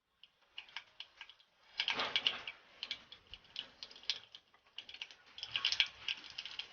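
Mustard seeds spluttering in hot oil for a tempering: a rapid, irregular run of sharp pops and crackles, thickest about two seconds in and again near the end.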